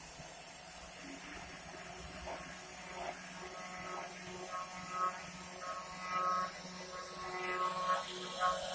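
DIY CNC router running, a steady motor hum with short whining tones that start and stop as the machine moves, coming more often from about four seconds in.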